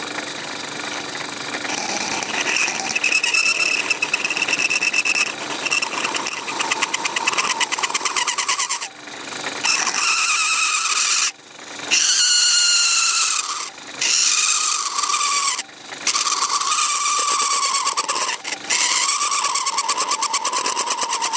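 Knife blade squealing against a laminated plastic part spinning in a metal lathe, a high pitched squeal that stops and starts several times as the blade is pressed in and eased off, with the lathe motor running underneath.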